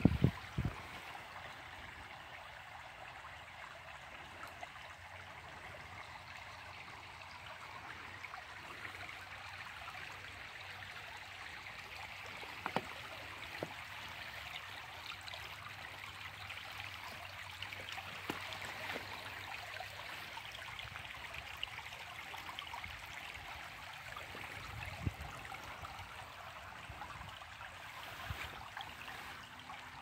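Shallow rocky creek babbling steadily over stones, with a few brief knocks, the loudest right at the start.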